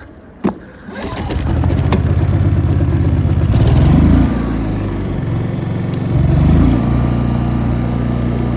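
Makita EG2800iSE inverter generator engine catching about a second in after a sharp knock, then running. Its speed climbs and drops back twice before settling into a steady run.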